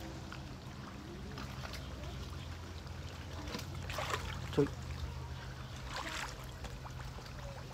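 Hands groping through thick mud and shallow water, giving scattered wet squelches and splashes, with the strongest splashes about four and six seconds in, over a steady low hum. A brief, loud sound falling in pitch comes about four and a half seconds in.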